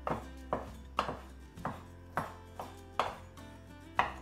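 Kitchen knife chopping through slices of ham onto a wooden chopping board, dicing it with knocks about twice a second, somewhat uneven, over quiet background music.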